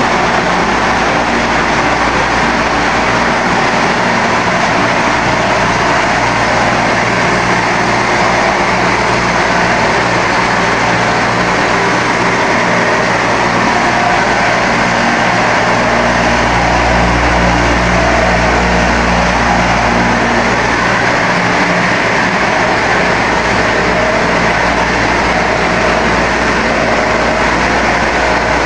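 Corn flakes production line machinery running: a loud, steady mechanical din of motors and conveyors with an even low hum. A deeper hum grows stronger for a few seconds past the middle.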